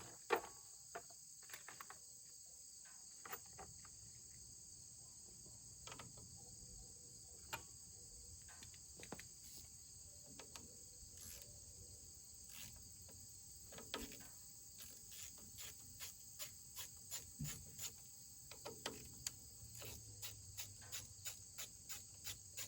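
Steady insect chirring, crickets, with scattered light metallic clicks and knocks of hand-tool work. A socket wrench is working the sawmill engine's shroud bolts. The clicks come more often in the second half, about two a second near the end.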